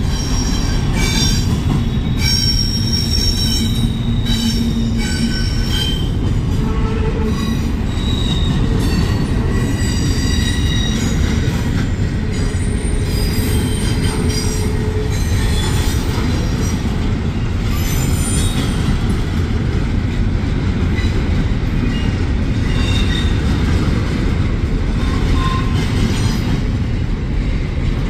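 Double-stack intermodal well cars of a freight train rolling past: a steady heavy rumble of steel wheels on rail, with short high-pitched metallic squeals coming and going, thickest in the first few seconds and again midway.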